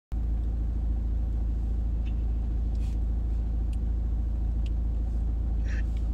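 Steady low rumble of car cabin noise heard from inside the car, with a few faint ticks.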